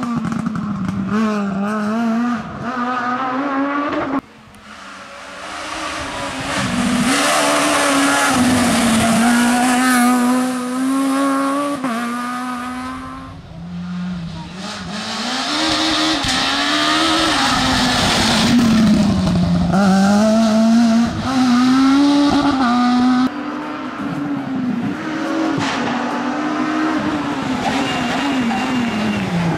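Renault Clio S1600 rally car's high-revving 1.6-litre four-cylinder engine, its pitch climbing and dropping through gear changes and lifts as it takes bends at speed. The sound cuts abruptly several times between passes.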